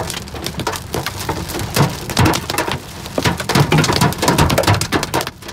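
Rain and hail hitting the car's roof and windshield, heard from inside the cabin as a dense, irregular patter of sharp taps over the low drone of the moving car.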